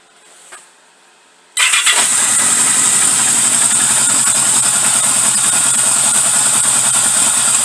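1978 Yamaha XS1100's four-cylinder engine starting about a second and a half in, catching almost at once, and settling into a steady, smooth idle on its freshly rejetted carburettors, three sizes smaller on the pilot jets after running rich.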